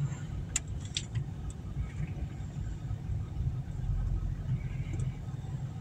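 Low, steady vehicle rumble heard from inside a car's cabin, with a few faint clicks about half a second to a second in.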